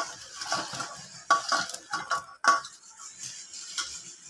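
Steel plate clinking and knocking against the rim of a cooking pot as fried pakoras are pushed off it into thick kadhi: a string of irregular metallic clinks, most of them in the first three seconds.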